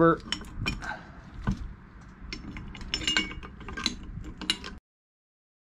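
Scattered light metal clicks and clinks of steel brackets and fittings being handled and fitted onto a Kubota BX1500's hydraulic steering cylinder, some with a short metallic ring. The sound cuts off abruptly near the end.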